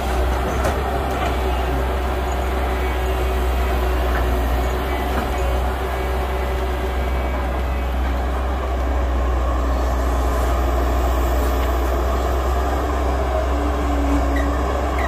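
Diesel engines of an excavator and dump truck running steadily, with a deep drone and a faint whine that drops lower in pitch after the middle.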